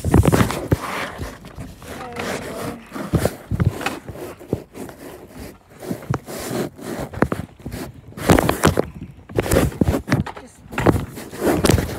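Muffled handling noise from a phone carried inside a shopping bag: irregular rubbing and bumping of the bag against the microphone, with muffled voices at times.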